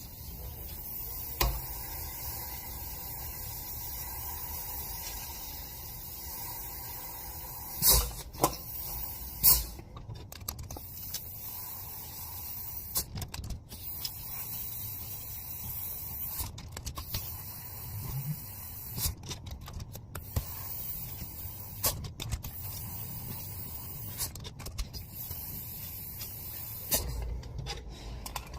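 Shop handling noises as a pair of 318 Dodge cylinder heads are reassembled: scattered metal clicks and two sharp knocks about eight seconds in and again a second and a half later, over a steady hiss. The sound cuts out abruptly several times.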